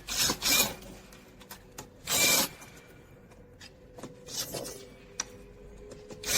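Screws being unscrewed from a bicycle handlebar stem clamp, with tools and parts scraping and rubbing in three short bursts about two seconds apart.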